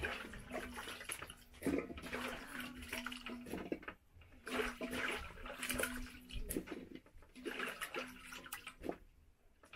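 Peeled green banana pieces being washed by hand in a metal basin of water: irregular bursts of splashing and sloshing, with short pauses between handfuls.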